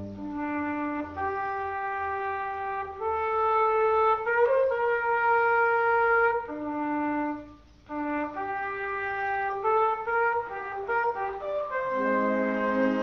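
Wind band playing a soft passage: a brass melody of held notes over a thin accompaniment, breaking off briefly about two-thirds through, with the low brass coming back in and the sound filling out near the end.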